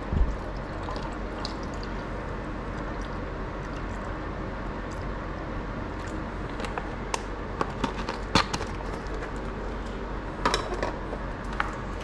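Steady sound of running liquid, with several light clicks and knocks in the second half.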